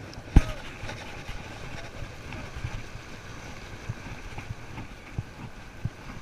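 Waves washing against jetty rocks and wind on the microphone, a steady rushing, with one sharp knock about half a second in and a few softer thumps later.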